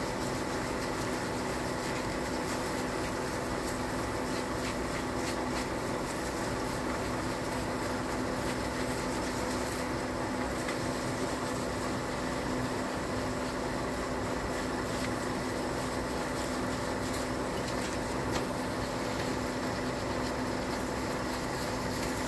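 Steady machine hum at an even level, with a constant low tone and a few faint ticks over it.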